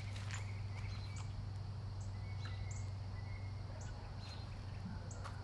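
Outdoor ambience: birds chirping here and there in short high calls over a steady low hum.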